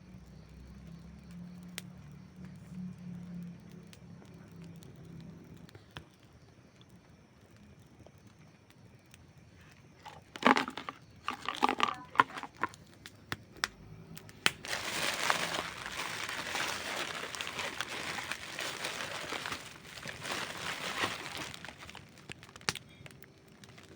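Campfire crackling, with a few sharp pops at first and then loud crackling about ten seconds in, followed by a long stretch of dense crackling and hissing that dies back near the end.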